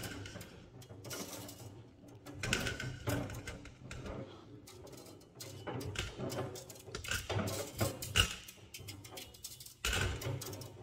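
3/16 copper-nickel brake line being wound by hand around a 3D-printed coil former: irregular rubbing, scraping and light clicks of the metal tube against the former.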